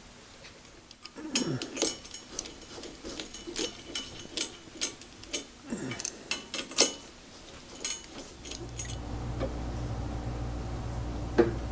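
Steel hand tools and parts clinking and knocking as bolts on a drive bracket are fitted and tightened with a wrench: a string of sharp metallic clicks, some ringing, over about seven seconds. Near the end a steady low hum sets in.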